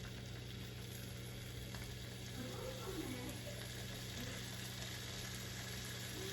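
Chicken skewers sizzling steadily in melted butter on a hot flat pan.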